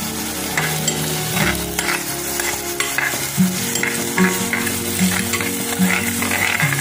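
Chopped onions sizzling in hot coconut oil in a pan, with a spatula scraping through them in repeated stirring strokes.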